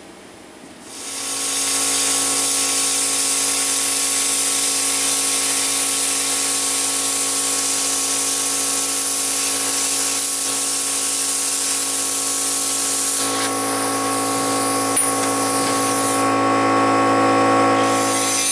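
A small 40-amp CUT-40 plasma cutter cutting a hole through quarter-inch steel plate. A loud, steady hiss of air and arc over a buzzing hum starts about a second in, and its tone shifts twice near the end.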